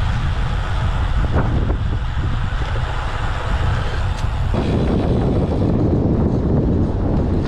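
Wind buffeting a bicycle-mounted camera microphone while riding a road bike, a loud steady low rumble with tyre and road noise. About four and a half seconds in it changes abruptly to a fuller, denser rush.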